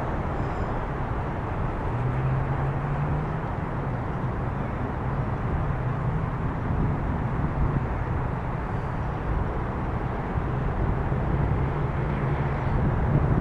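Steady engine drone with a low hum that wanders slightly in pitch, under a rushing wind-like noise on the microphone.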